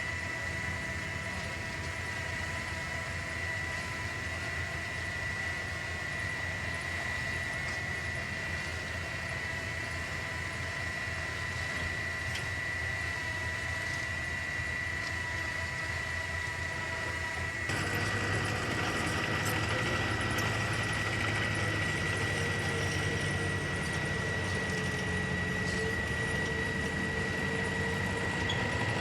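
Heavy earth-moving machinery's diesel engine running steadily, with a constant high whine over it. About two-thirds of the way in the sound changes abruptly and gets louder and fuller.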